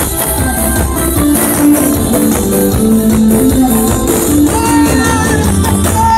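Lively Thai folk music: a stepping melody over fast, dense percussion with jingling, tambourine-like cymbals.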